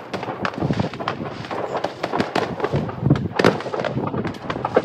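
Many fireworks going off at once: a dense run of overlapping bangs and crackles, the loudest about three and a half seconds in.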